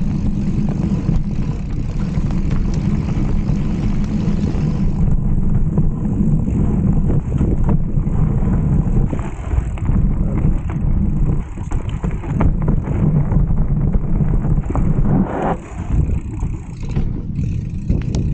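Heavy wind rumble on the microphone of a mountain biker riding a trail, with rattles and knocks from the bike over rough ground.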